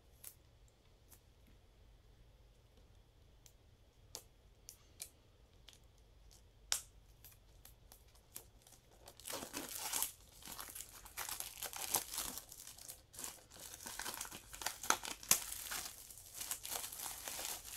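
A few light clicks as a Blu-ray SteelBook case is handled, then, from about nine seconds in, plastic shrink wrap crinkling and tearing steadily as it is peeled off the case.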